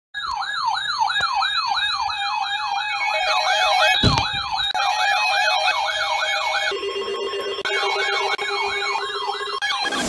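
Electronic siren yelping, a fast up-and-down wail about two and a half sweeps a second, with a second steady tone joining about three seconds in. A single knock about four seconds in. The yelp breaks off briefly near seven seconds, leaving a lower steady tone, then starts again.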